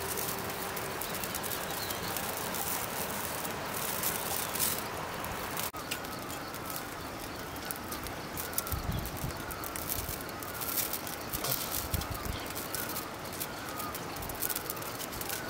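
Wood fire crackling under a simmering pan. From about six seconds in, a small bird chirps repeatedly in the background.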